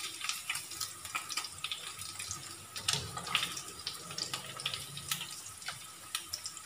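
Pork belly pieces sizzling in their own rendered fat in a frying pan: a steady hiss with many scattered small crackles and pops, as the meat turns brown.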